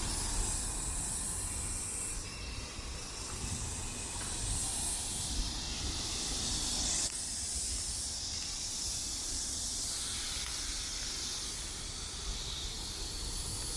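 Chorus of cicadas: a continuous high, shrill hiss that swells and eases in patches, over a faint low rumble of distant city traffic.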